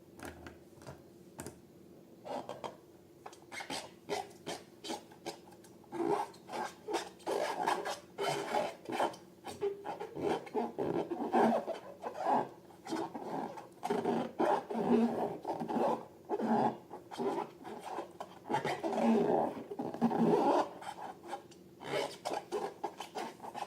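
Slime being mixed and worked, a run of irregular sticky squishing and scraping sounds that gets louder about six seconds in.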